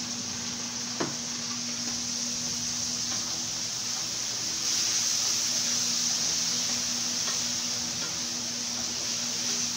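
Chicken frying in oil in a pan, sizzling steadily as it is stirred with a wooden spatula; the sizzle gets louder about halfway through. A single knock about a second in.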